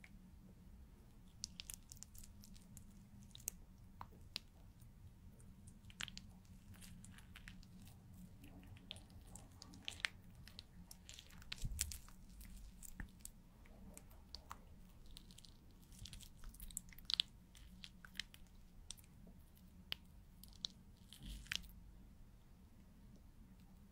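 A marker pen drawing on a pane of glass close to the microphone: scattered short scratches and taps of the tip against the glass, some in quick clusters, over a faint low hum.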